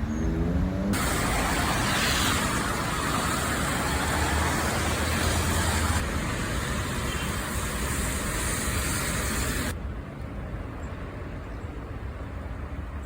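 Street traffic in strong wind: a vehicle engine rising in pitch as it accelerates in the first second, then a loud steady hiss of wind and traffic that shifts abruptly twice and drops to a quieter low rumble near the end.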